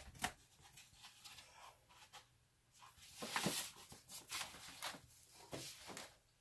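Faint, scattered rubbing and rustling handling noises, a few short scrapes, the loudest about three seconds in.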